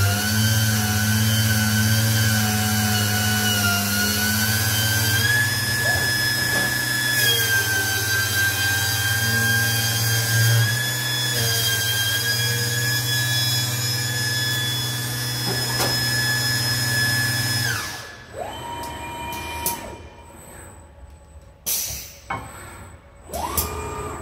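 Grinding machine in a robotic grinding cell running with a steady high whine over a low hum. About three-quarters of the way through it shuts down, its pitch falling away. After that, short rising whines of the robot arm's motors and a few knocks follow.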